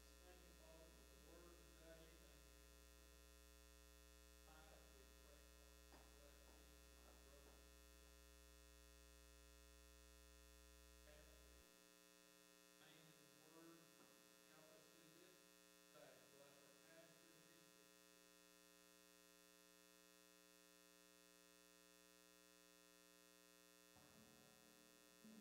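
Near silence with a faint, steady electrical mains hum on the sound feed; its deepest part cuts off about halfway through.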